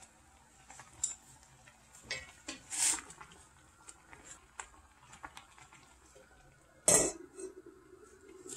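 Kitchen utensils and dishes clinking and knocking as food is prepared, with scattered light clicks and two louder knocks, one about three seconds in and one about seven seconds in.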